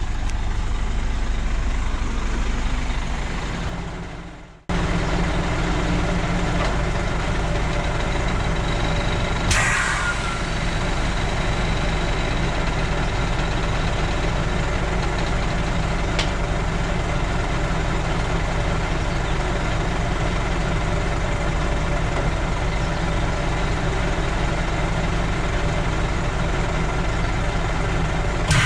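Heavy diesel truck engine idling steadily, the Scania S500 tractor unit being uncoupled from its trailer. About ten seconds in there is a short hiss of air. The sound fades out around four seconds in and cuts back in abruptly.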